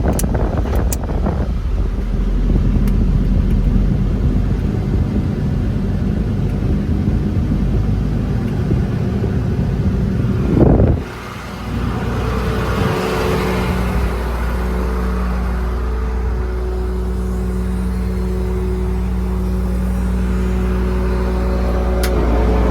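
Diesel engine of a truck with a 5.9 Cummins running steadily. About halfway through there is a brief loud swell and a short drop, after which it settles into a steadier hum with a faint pulsing tone.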